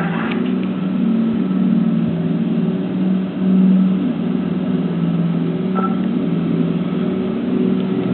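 A loud, steady low drone, mechanical in character, whose pitch steps back and forth between two close low notes every second or so, in an uneven pattern. Its source is unidentified.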